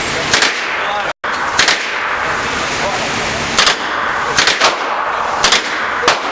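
Single gunshots in an indoor shooting range, about seven, fired at uneven intervals over a steady background noise.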